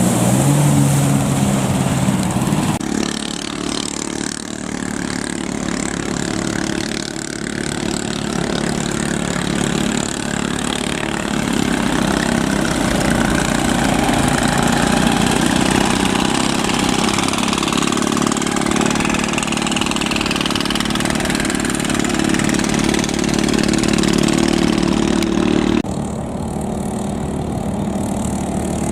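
Small 7 HP engines of vỏ lãi long-tail racing boats running flat out, a steady engine drone that swells through the middle and drops suddenly near the end.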